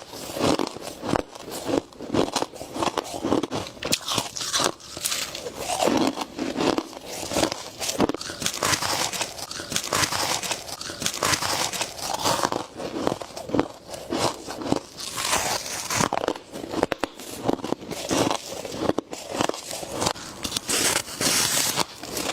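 Freezer frost being bitten and chewed close to the microphone: dense, continuous crisp crunching and crackling with no pauses.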